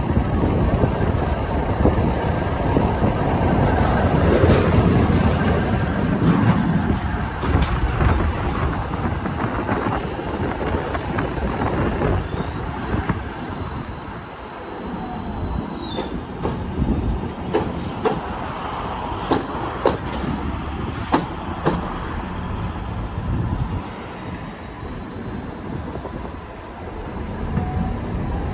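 Ganz KCSV-7 articulated tram running on the rails: a steady rumble of wheels on track, with a run of sharp clicks in the second half and a thin high whine that falls in pitch midway.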